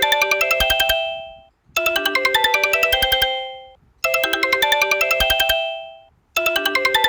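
Mobile phone ringtone: a short, bright melody of quick notes that plays, dies away and starts again about every two seconds, repeating three times with a fourth starting near the end.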